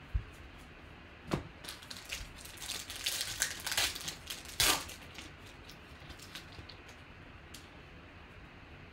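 Foil wrapper of a Panini Contenders basketball card pack crinkling and tearing as it is ripped open by hand, a cluster of crackles from about a second in until about five seconds in, loudest near the end of that stretch. A short soft thump comes right at the start.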